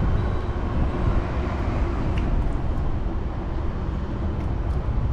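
Steady low rumbling outdoor background noise, with no distinct sounds standing out.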